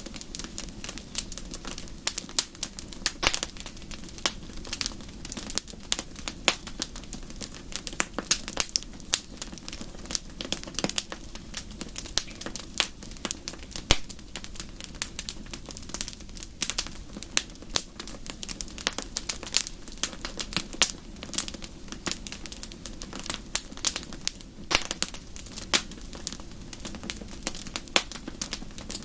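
Fire in a fireplace crackling: frequent sharp pops and snaps of uneven loudness over a steady low rumble.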